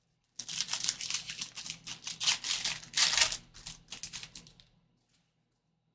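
Foil trading-card pack wrapper crinkling and tearing as gloved hands pull it open. A dense run of crackles lasting about four seconds, fading out near the end.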